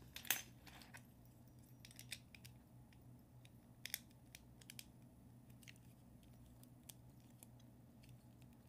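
Plastic Lego bricks being handled and pressed together: scattered sharp clicks, the loudest about a quarter second in, over a faint steady low hum.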